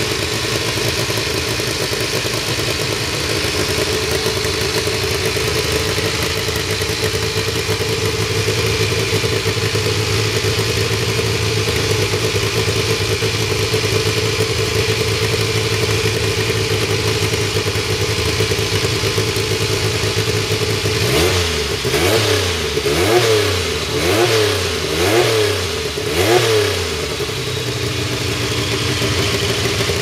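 Porsche 962C's twin-turbocharged flat-six engine idling steadily, then about two-thirds of the way through revved in five quick throttle blips, each rising and falling in pitch, before settling back to idle.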